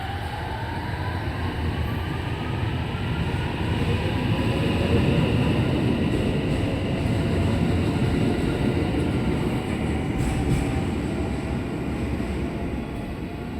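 IR Ishikawa Railway 521 series electric multiple unit accelerating: its traction inverter whines in several tones that rise in pitch over the first few seconds, over a steady rumble of wheels on rail that grows louder until about halfway through.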